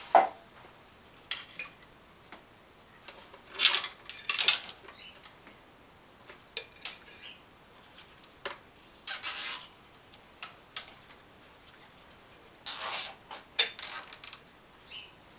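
Hands working around a truck's alternator and wiring harness: scattered metallic clinks, clicks and scrapes of wires, clips and small parts being handled. The sounds come as a dozen or so short, separate sounds, one of them a longer scrape about nine seconds in.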